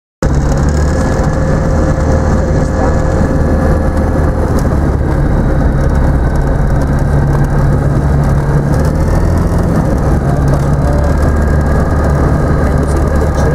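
Rotax 912 80 hp four-cylinder engine and propeller of an ICP Savannah ultralight running steadily, heard from inside the cockpit.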